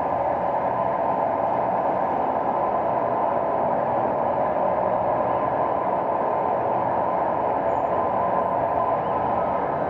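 Steady, unbroken running noise of a vehicle, even in level throughout.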